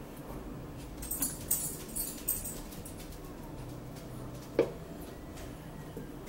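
Plastic squeeze bottles of sauce and dressing being squeezed: several short, sputtering squirts about one to two and a half seconds in, then a single sharp click a little later.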